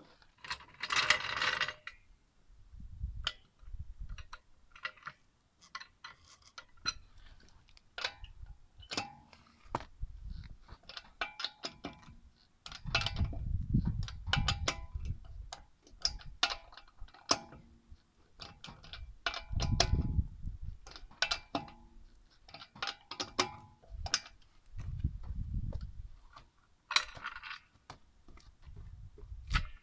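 Metal-on-metal clicks and clinks from lug nuts, a wrench and a red hydraulic floor jack being worked during a car wheel change. The clicks come irregularly throughout, some with a brief ring, with a few low rumbles between them.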